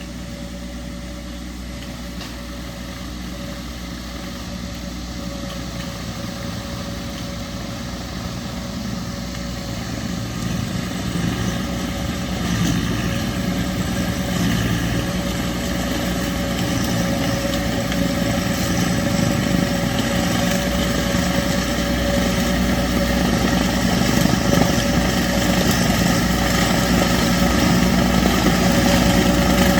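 Tractor engine running steadily under a bush-hog rotary cutter, growing gradually louder as it comes closer.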